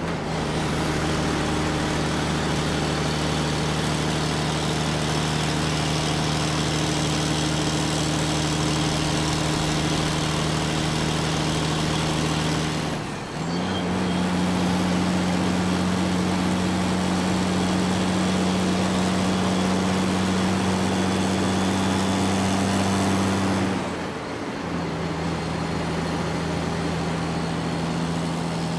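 Induction cooktop humming steadily from its cooling fan and coil, with faint frying from the pan. The hum steps up in pitch about 13 seconds in and back down about 24 seconds in, dipping briefly at each change.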